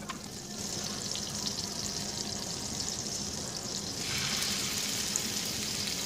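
Butter sizzling and foaming in a frying pan as a steady hiss. About four seconds in the sizzle grows louder as the first pancetta-wrapped meat rolls go into the hot butter.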